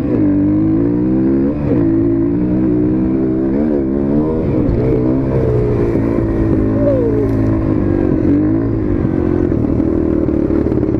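Dirt bike engine running under a rider, its revs rising and falling several times as the throttle is worked, with a quick rev-up and drop around two, four and five seconds in.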